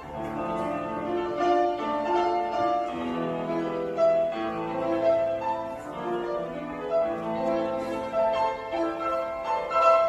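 Solo acoustic piano playing a piece at a steady pace, a continuous stream of notes over sustained lower chords.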